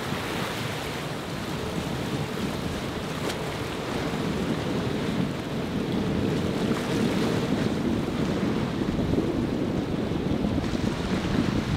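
Surf and churning water with wind buffeting the microphone, over the steady drone of a flybridge motor yacht's engines as it pushes through choppy inlet waves. It grows a little louder after a few seconds.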